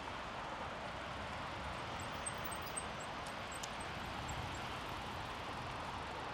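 Steady rushing noise of a touring bicycle rolling along a paved trail: tyre hum and wind noise. A few faint high ticks or chirps come about two to four seconds in.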